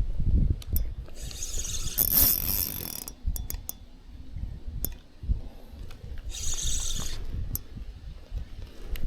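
Fishing reel being cranked, its gears and ratchet clicking, with patches of hiss.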